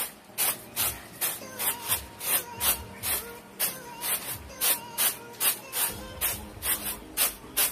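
Rhythmic wood-on-wood rubbing and scraping strokes, about two to three a second, from hand rice-milling with wooden tools, over background music.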